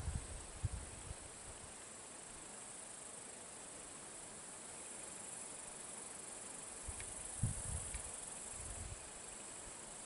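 Steady, faint, high-pitched chirring of field insects such as crickets. A few low, muffled bumps come in the first second and again about seven to nine seconds in.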